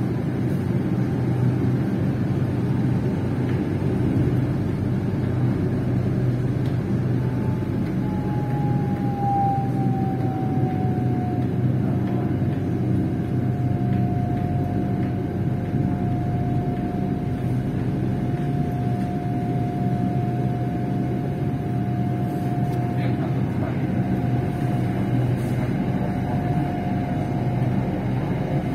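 SRT Red Line electric commuter train running, heard from on board: a steady rumble with a whine that drops a little in pitch about ten seconds in and then holds level.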